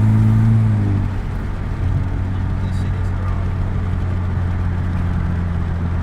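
2018 Honda Civic Hatchback Sport's 1.5-litre turbocharged four-cylinder pulling hard with a steady engine note, heard from inside the cabin; about a second in the engine note drops away, leaving a steady low drone of engine and road noise as the car cruises.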